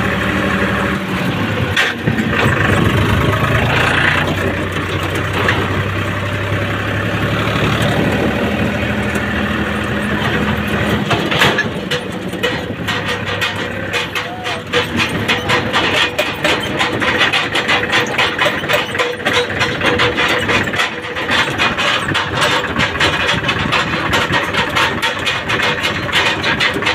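Powertrac Euro 50 tractor's three-cylinder diesel engine running as the tractor is driven, heard from the driver's seat. About twelve seconds in, the steady hum gives way to a rapid, even pulsing.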